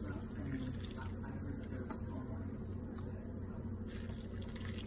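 Hot pho broth poured from a ladle into a bowl, with a few faint clicks of the ladle, over a steady low hum.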